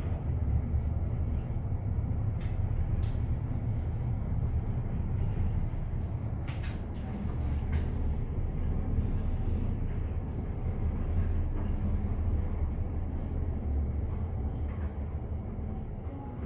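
A Fujitec high-speed elevator car travelling down its shaft, heard from inside the car: a steady low rumble of the ride with a few faint clicks. The rumble fades near the end as the car slows toward its stop.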